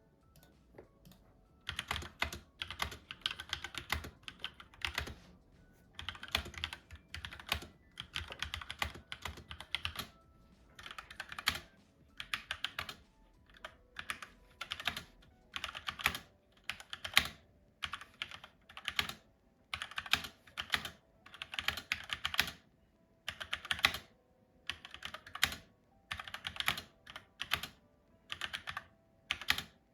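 SteelSeries Apex 7 mechanical keyboard with red switches being typed on: quick bursts of keystrokes, each a second or two long, separated by short pauses. There are only a few light taps in the first couple of seconds.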